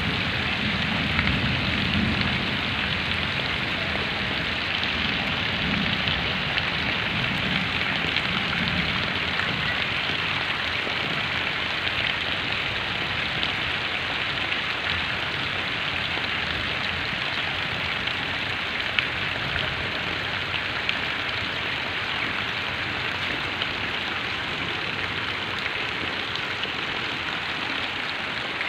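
Heavy rain falling steadily on mud and standing water, a dense even hiss with a few sharp ticks of drops. A low rumble dies away over the first few seconds.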